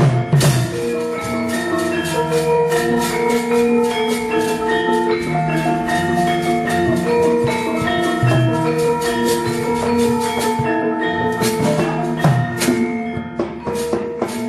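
Javanese gamelan music: struck bronze metallophones ring out a running melody, with occasional low strokes underneath.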